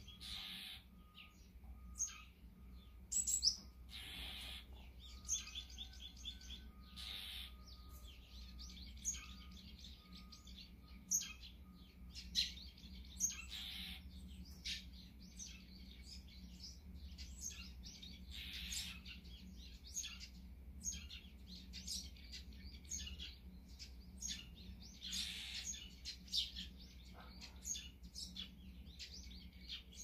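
Many short chirps and calls from several small wild songbirds, scattered throughout, some in quick runs, over a faint steady low hum.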